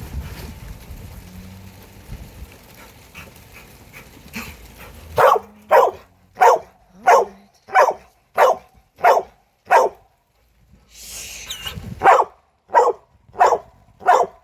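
Dog barking in a regular run of single barks, about one and a half a second, starting about five seconds in, pausing briefly, then starting again. A faint low rumble comes before the barking.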